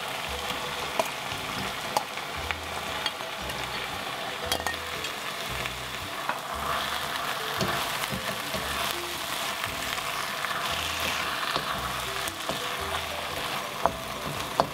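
Beef strips and stir-fried vegetables sizzling in sauce in a hot wok while being stirred and tossed with a wooden spatula. The sizzle is steady, with a few sharp clicks as the pan is stirred.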